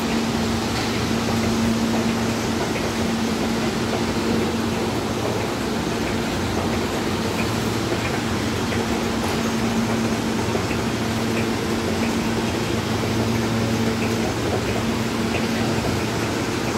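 Steady hum and rush of an R160 subway train standing at the platform with its air-conditioning and auxiliary equipment running, with a steady low drone under the noise.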